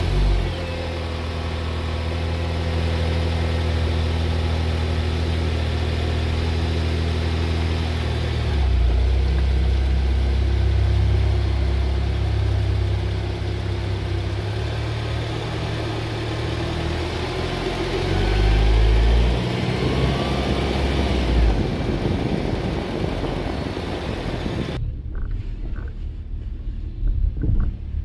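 Honda Accord VIII's 2.4-litre K24Z3 four-cylinder, heard at its homemade cold-air intake behind the front bumper (flexible chimney-duct pipe, OEM air filter, intake resonator removed). It idles steadily, then pulls away at low speed with the intake note rising and falling and climbing in pitch about two-thirds of the way through. Near the end the sound turns muffled and dull, as heard from inside the cabin.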